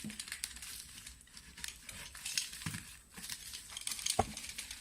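Packaging being opened by hand: plastic and cardboard crinkling and rustling in quick crackles, with a couple of dull knocks about two and a half and four seconds in.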